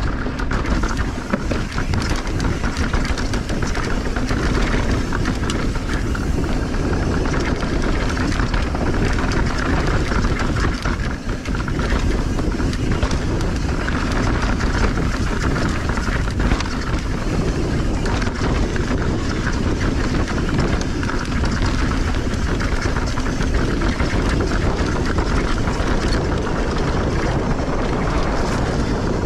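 Mountain bike riding fast down a dry dirt trail: a steady rush of wind on the camera's microphone and tyre noise on the dirt, with frequent small rattles and knocks from the bike over the bumps.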